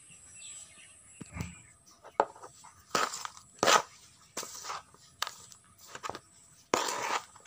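Small metal trowel scooping and scraping soil and cow-dung manure around a metal pan as the potting mix is stirred together: a run of short gritty scrapes starting about two seconds in, the loudest in the middle and near the end.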